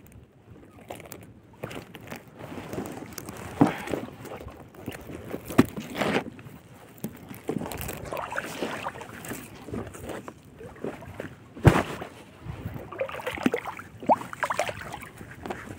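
Handling of a wet nylon gill net at close range: irregular rustling and scraping of the net twine with some water sloshing, and a few sharp knocks, the loudest about twelve seconds in.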